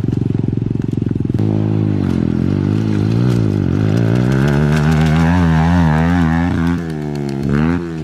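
Small single-cylinder pit bike engine being ridden. It runs at a low, even note for about a second, then revs up and down repeatedly as the rider works the throttle. It eases off briefly near the end, then gives one short rev.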